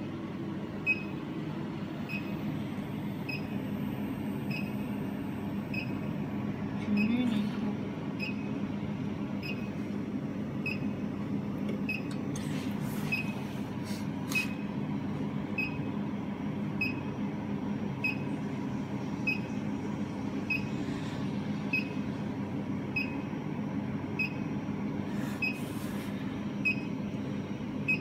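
Ultra-high-frequency induction heating machine running while it heats a workpiece: a steady low hum with a short high beep repeating a little faster than once a second.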